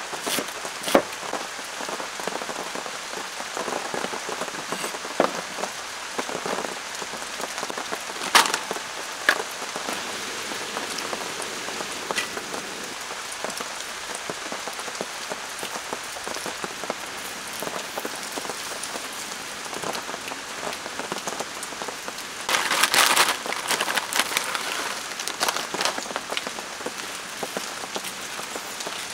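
Steady rain falling on a surface, an even hiss of patter, with a few sharp clicks scattered through it and a louder, denser rush for about two seconds late on.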